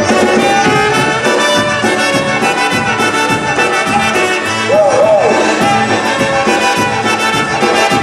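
Live polka band playing a polka, with trumpet, clarinet and concertina over a steady drum beat.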